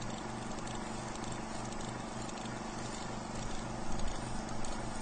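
Steady hiss with a low hum underneath.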